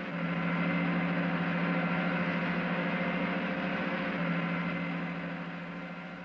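Fire engine's ladder being raised: a steady motor hum that swells up and then slowly fades away.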